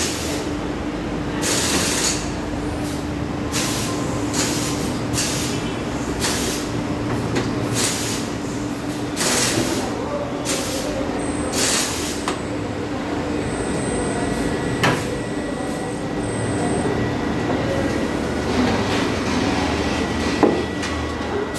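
Compressed air hissing in short, repeated bursts, about one or two a second, over a steady low hum. The bursts stop about twelve seconds in, after which there are a few sharp clicks.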